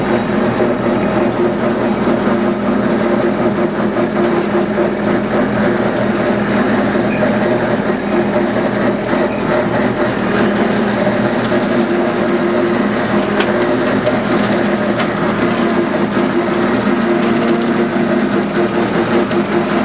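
An engine running steadily with a continuous drone.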